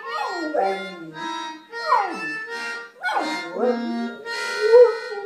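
A dog 'singing': a few long howls that slide down in pitch, over steady held notes from a free-reed instrument.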